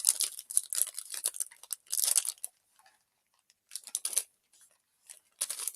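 Plastic snack wrapper crinkling and tearing as a package is handled and opened. The rustle is dense for the first couple of seconds, comes again in a short burst about four seconds in, and starts up once more near the end.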